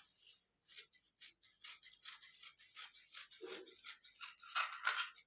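Scissors snipping through fabric in a quick run of short, crisp cuts, louder near the end.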